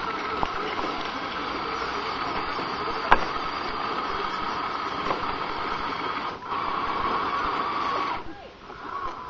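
Small electric motor and gearbox of a radio-controlled Tamiya Scania truck whining steadily as it drives through loose sand, with a sharp click about three seconds in. The whine cuts out briefly twice near the end.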